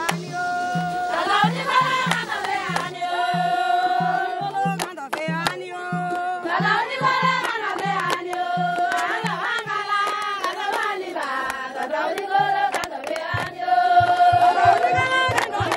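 Background music: a singing voice carrying a melody over a steady, quick drum beat.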